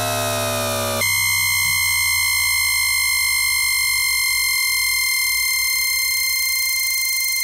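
Toyodenki RG-685-A-M VVVF traction inverter, picked up electrically by an inductor coil, as the train slows. A cluster of falling electronic tones in synchronous 9-pulse mode switches abruptly, about a second in, to the asynchronous mode's steady 1050 Hz carrier whine.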